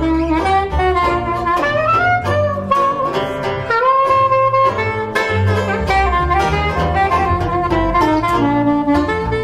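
Soprano saxophone playing the melody in a trad jazz tune, with held notes and runs, over strummed banjo chords and plucked double bass notes.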